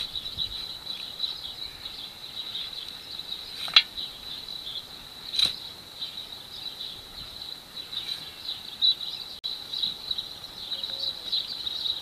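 Steady high-pitched chirring of insects. Twice, about four and five and a half seconds in, there is a short sharp click as a hand trowel digs soil out of a plastic bucket.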